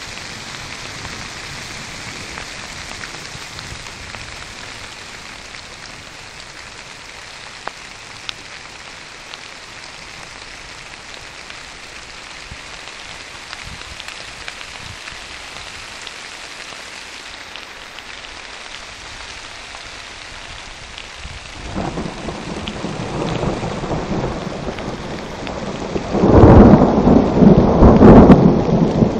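Steady rain hissing down, then a roll of thunder that comes in about three quarters of the way through and swells to its loudest near the end.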